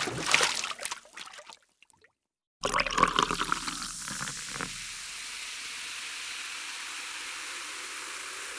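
Two separate sound effects. First a short crackling, splashing liquid sound like pouring water, which breaks off within two seconds. Then, after about a second of silence, a crackling sound settles into a steady hiss.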